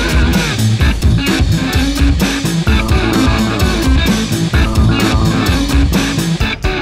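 Rock music with guitar, bass and a steady drum beat.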